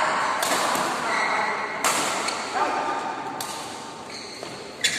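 Badminton rackets striking a shuttlecock in a rally, four sharp hits about one and a half seconds apart, each ringing briefly in a large hall.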